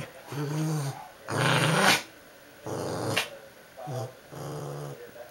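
Small long-haired dog growling at a pillow it is mounting, in a string of about five rough growls, each half a second to a second long with short breaks between; the loudest comes about a second and a half in.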